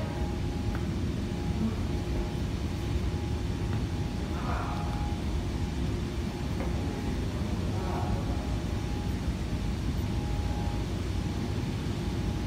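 Large 2-metre-wide steel cord belt conveyor running at about 4.5 metres per second: a steady low rumble from the belt travelling over its troughing idler rollers, with a faint steady whine above it.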